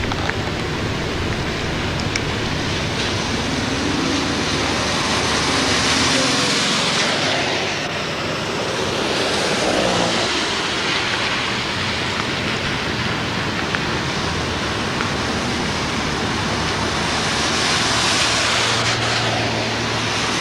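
Steady loud rushing noise that swells twice, once near the middle and again near the end, with a few faint sharp clicks through it.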